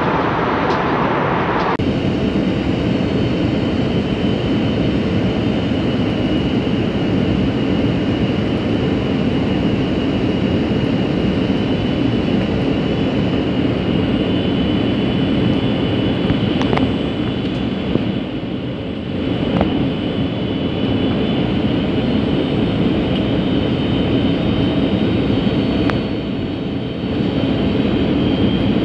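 Airbus A321 cabin noise from a window seat: the steady roar of the jet engines and rushing air, with a high steady whine over it. The sound changes abruptly about two seconds in, and a few light clicks come later.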